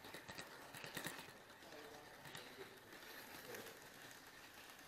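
Near silence: faint room tone of a large hall, with a few faint clicks in the first second.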